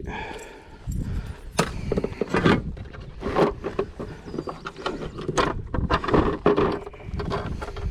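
A bass being fought and landed from a plastic fishing kayak: irregular knocks and clatter of gear and fish against the hull.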